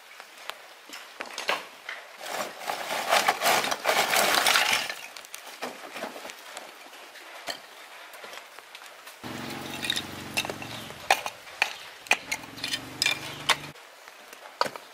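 Clinks and knocks of hard objects being handled, with a loud stretch of rough noise about two seconds in and a low steady hum for about four seconds later on.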